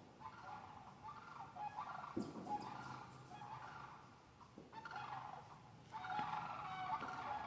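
A flock of sandhill cranes calling, many birds overlapping, with a short lull near the middle and the calling swelling louder near the end. A single thump about two seconds in.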